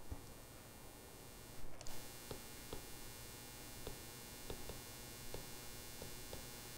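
Faint, irregular clicks of a stylus tip tapping and dragging on a tablet's glass screen during handwriting, with a slightly louder knock about two seconds in, over a low steady background hum and hiss.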